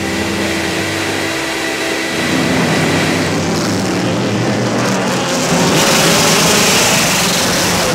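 BMW M3 E92 GT race car's V8 engine running hard at speed, growing louder in the second half.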